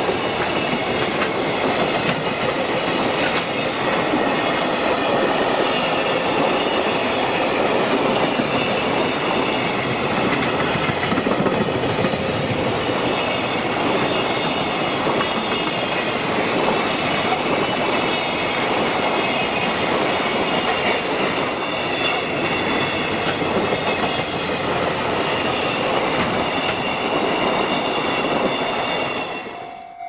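A long freight train of container wagons running past close by, its wheels clattering over the rails in a dense, steady rumble, with several steady high-pitched tones riding over it. The sound drops away suddenly just before the end.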